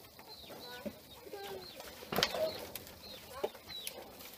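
Farmyard chickens clucking, with many short high chirps from birds or chicks, and a sharp knock about two seconds in.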